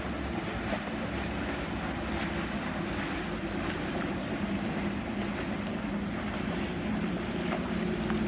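Inboard engines of two wooden motor launches running at low speed as they come up the canal, a low hum that grows a little louder in the second half as the nearer boat closes in, over the wash of water from their wakes.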